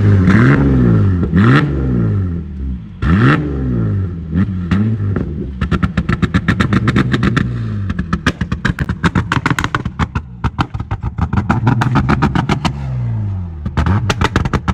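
Holden VX Commodore engine revved in several quick blips, then a rapid string of sharp pops and bangs from the exhaust over the engine note, from about five seconds in to the end. It is key banging: the ignition is switched off and on at revs so unburnt fuel fires in the exhaust.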